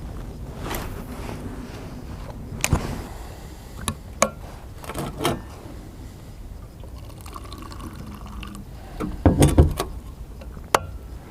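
A hot drink poured into a cup, with several sharp clicks and knocks as the cup and container are handled.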